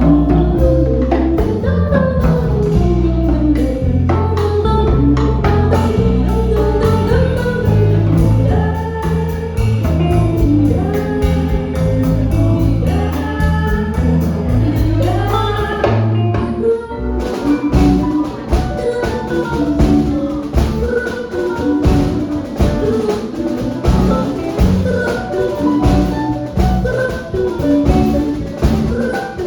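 Jazz quintet playing: a voice sings a gliding, wordless-seeming melody over long held bass notes, drum kit, piano and guitar. About 17 seconds in the held bass drops away and the texture turns busier, with frequent drum strokes and short plucked and piano notes.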